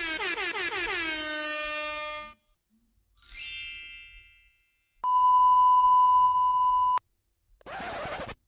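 A string of meme sound effects with short silences between them: first a sound that slides down in pitch and settles on a held note, then a short high ringing tone that fades away, then a loud two-second steady censor bleep, and a brief noisy burst near the end.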